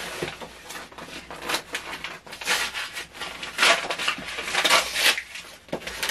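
Paper wrapping being torn open and crumpled by hand, in several irregular rustling bursts.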